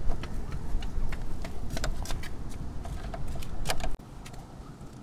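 Scattered light metallic clicks and taps of a small hand tool working on a scooter's front brake caliper, over a low rumble that drops away about four seconds in.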